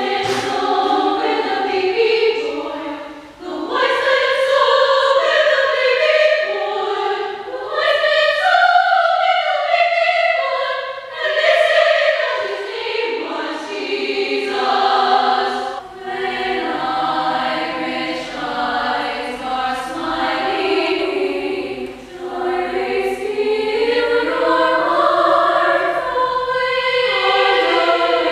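Women's and girls' choir singing a choral piece, in phrases broken by short pauses.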